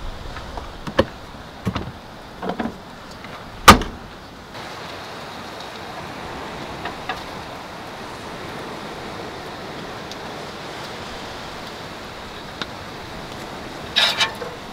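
Clicks and knocks of gear being handled in a vehicle's cargo area, with one sharp clunk about four seconds in, like a lid or door shutting. After that comes a steady hiss of wind and surf, with a short rustling burst near the end.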